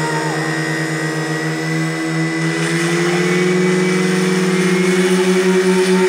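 Portable fire pump's engine running hard at high revs, pumping water through the hoses to the nozzles. Its note rises slightly about two and a half seconds in.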